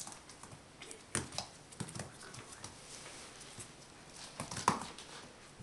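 Miniature pinscher puppy scrambling after a toy ball on a smooth floor mat: scattered clicks and taps of its claws and the toy, in small clusters, the loudest near the end.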